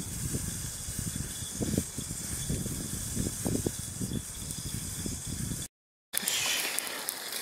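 Wood fire burning in a fire stand under a charcoal-topped cast-iron Dutch oven: an irregular low fluttering of flames over a steady hiss. The sound cuts out briefly about six seconds in, then the hiss returns with a few faint crackles.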